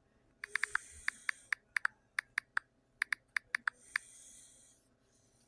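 A run of about eighteen sharp, irregularly spaced clicks over three and a half seconds, like typing or tapping, followed by a soft hiss about a second long.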